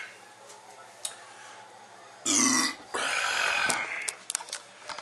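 A man belches loudly twice, a little past two seconds in, the second belch longer. Near the end there are sharp clicks and knocks as the camera is picked up and moved.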